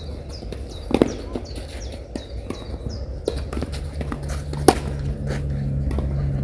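Tennis ball struck by rackets during a rally: one hit about a second in and a sharper, louder one near five seconds in. Small birds chirp repeatedly throughout, and a low steady hum comes in about four seconds in.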